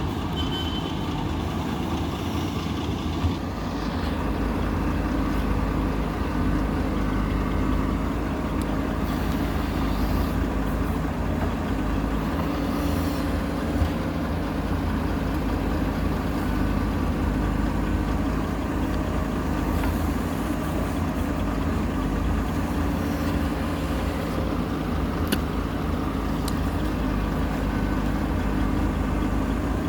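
Diesel engine of a JCB 3DX backhoe loader running steadily while it loads mud into a dump truck, with a few sharp knocks along the way.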